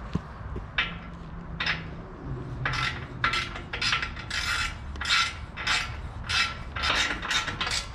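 A hand tool working on the car's front-end parts, making short rasping strokes about twice a second from a few seconds in, with a couple of single clicks before them.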